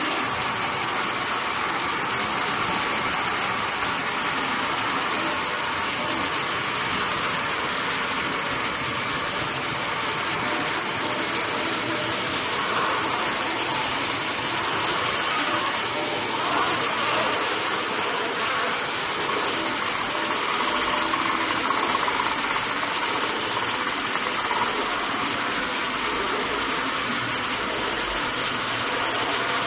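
Steady running noise of a roll laminating machine, its motor and rollers turning as printed wrap vinyl winds through.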